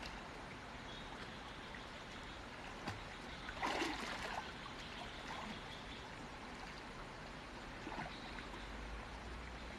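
Shallow stream water running and trickling over rocks, with a brief louder splash about four seconds in.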